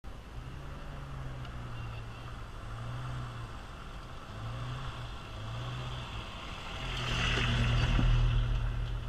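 A Jeep's engine running at low revs as it crawls over a sand mound, its pitch rising and falling in short spells. It grows loudest about seven to eight and a half seconds in, as the Jeep passes right over the microphone.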